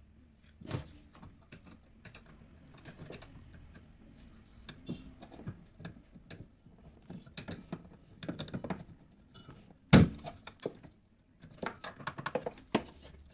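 A 10 mm spanner tightening the bolt that holds the pulley on a washing machine's gearbox shaft: irregular metallic clinks and ticks as the spanner is worked, with one sharp knock about ten seconds in. The new bolt is being tightened so that the pulley no longer wobbles.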